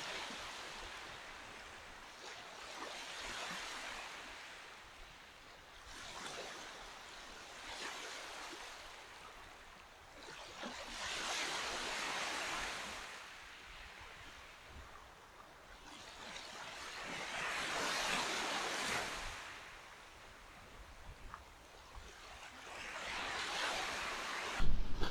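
Small ocean waves breaking and washing up a sandy beach, the surf swelling and fading every few seconds. A sudden low rumble comes in right at the end.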